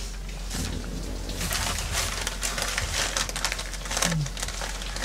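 Newspaper rustling and crumpling in rubber-gloved hands, a run of crackly bursts through the middle, with a short low falling hum near the end.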